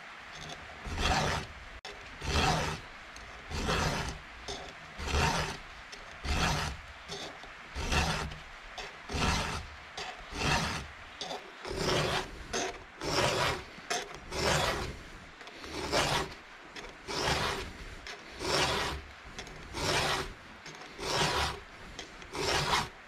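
Round chainsaw file in a filing guide rasping across the cutters of a Stihl saw chain, sharpening them at a 30-degree angle. Even, regular file strokes, about three every four seconds.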